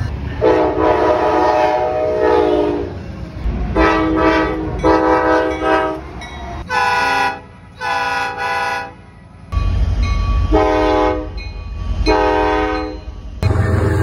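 Diesel locomotive air horns sounding a string of blasts, some long and some short, over the low rumble of passing trains. The first long blast sags slightly in pitch as the locomotive goes by. The horn's chord changes abruptly a couple of times, with steady train rumble in between.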